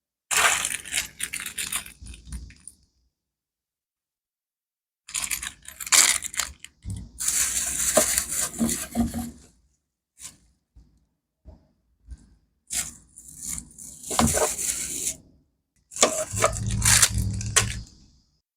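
Handling noises in several bursts with silent gaps: small hard parts clinking, scraping and rattling.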